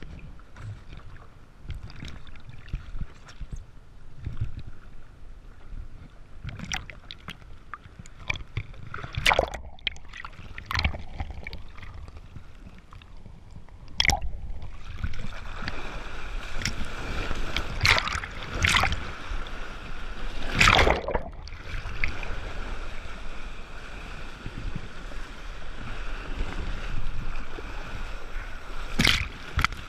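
Water sloshing and splashing around a kiteboard and rider, with sharp slaps of water now and then. About halfway in, the board gets up and rides, and a louder, steady rush of water under it begins, broken by several hard splashes.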